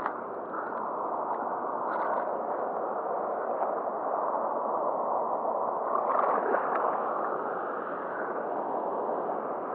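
Steady rush of river water flowing by, with a few faint ticks.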